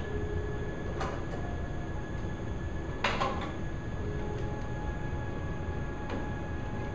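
Metal clamps knocking against a wooden bending form while a steamed ash canoe stem is clamped in place: three sharp knocks, the loudest about three seconds in, over a steady low rumble.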